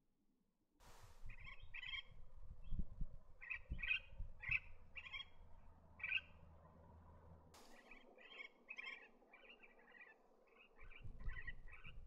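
Superb parrots calling: a steady run of short, rough chirping notes, a few a second, with a low rumble underneath for much of it.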